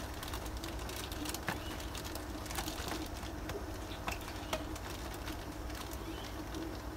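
Faint rustling and ticking of a plastic bag and rubber band as the twisted neck of a fish-shipping bag is wound shut, with a bird cooing faintly in the background.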